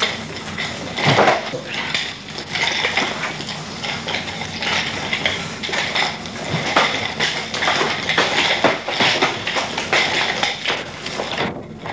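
Nunchaku being swung and struck in fast combinations: the sticks and chain clack and rattle in an irregular run of sharp strokes, with a few heavier knocks.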